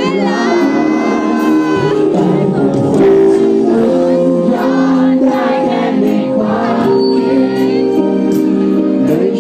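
Live pop band playing loudly, with a singer singing the song, heard from within the audience at the concert.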